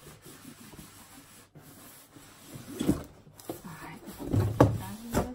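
A cardboard shipping box being handled and opened: cardboard rubbing and scraping, with a few louder knocks and scuffs in the second half as a boxed product is slid out of it.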